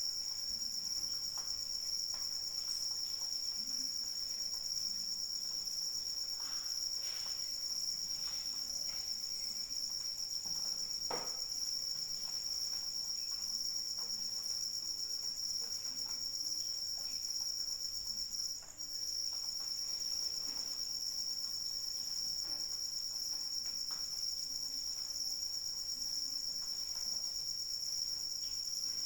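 Crickets chirping in a steady, continuous high-pitched chorus, which cuts out for a split second about two-thirds of the way through.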